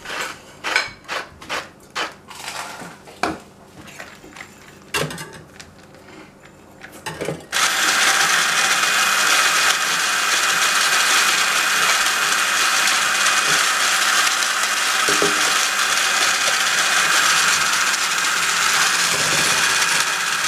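A run of short clicks and taps as salt is shaken into a stainless steel bowl of egg whites. About seven and a half seconds in, a handheld stick blender with a whisk attachment switches on suddenly and runs steadily, beating the egg whites.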